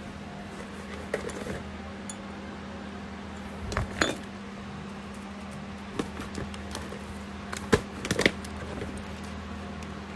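Plastic seasoning tubs and bottles knocking and clinking as they are handled and shifted among packed groceries: scattered knocks, the loudest about four seconds in and a cluster around eight seconds in, over a steady low hum.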